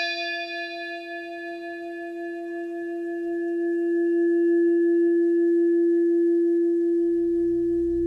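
A struck bell ringing out: one long, steady tone that wavers slowly in loudness while its higher overtones fade away. A low hum comes in near the end.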